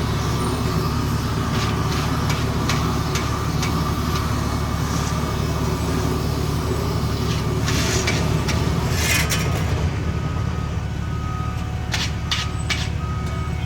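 Diesel engines of heavy paving equipment running steadily, with scattered knocks and clanks and a few short hisses. About ten seconds in, a machine's reversing alarm starts beeping at a steady pace.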